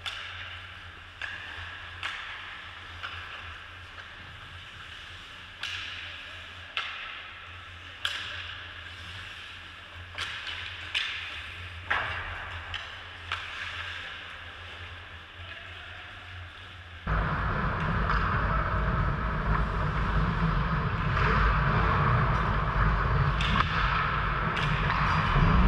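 Ice hockey play heard from a goalie's helmet camera: scattered sharp clicks and knocks of sticks, puck and skates on the ice. About two-thirds of the way in, a loud steady rushing noise starts suddenly and covers everything until it cuts off at the end.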